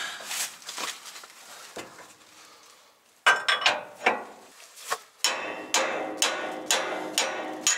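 Hammer blows on steel as a pin in the snowplow's frame mount is driven with a hammer and bar: sharp metallic strikes that ring briefly. A few scattered blows come first, then a loud cluster a little past three seconds in, and in the second half a steady run of about two blows a second.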